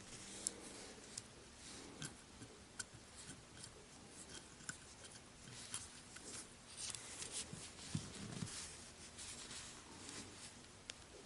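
Faint, scattered clicks and light scraping of small metal folding-knife parts being handled and fitted together around the pivot.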